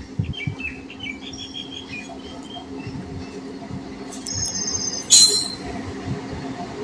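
Birds chirping over the steady low rumble of an approaching express train hauled by an electric locomotive, with a short, loud hiss about five seconds in.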